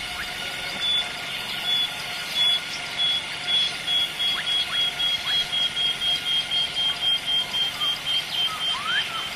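Wild animal chorus: one high, beep-like note repeated over and over, speeding up from about one a second to about three a second and slowly dropping in pitch. Under it runs a steady high insect drone, and a few short rising chirps come through.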